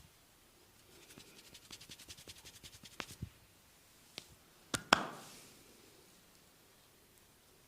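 Hand-massage sounds: a run of rapid light taps, about eight a second, then a few single sharp clicks. Just past the middle come two loud cracks close together, the second the loudest, ringing briefly in the room.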